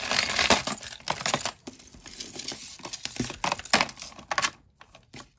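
Costume jewelry being rummaged through and pulled from a plastic bin: beads, chains and metal pieces clicking and clattering against each other, dying away near the end.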